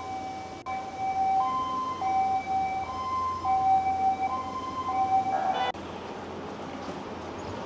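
Two-tone hi-lo siren of an emergency vehicle, switching back and forth between a lower and a higher note about every half second to second, then cutting off sharply about five and a half seconds in. After that only steady street background noise remains.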